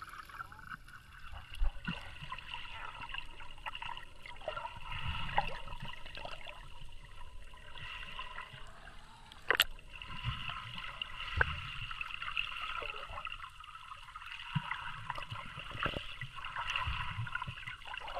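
Underwater ambience picked up by a submerged camera: muffled water movement and low rumbles with scattered sharp clicks, the loudest about ten seconds in.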